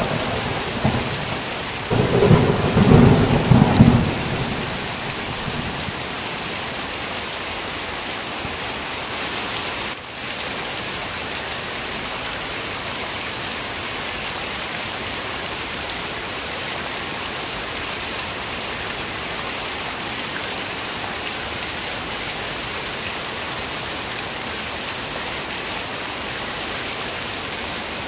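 Heavy rain falling steadily, with thunder rumbling as the sound begins and a louder roll of thunder about two to four seconds in, after which only the even rain continues.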